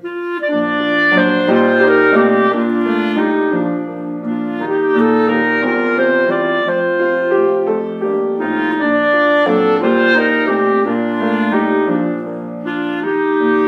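Clarinet playing a melody over piano accompaniment, in phrases of about four seconds with short breaths between them.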